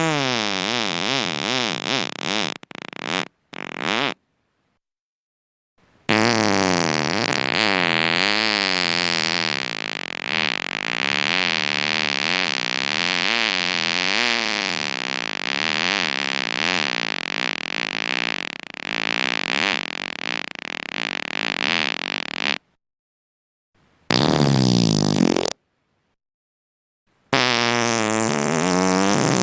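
A series of drawn-out fart sounds with a pitch that wavers up and down. The longest runs about sixteen seconds, and each one is cut off suddenly by a silent gap.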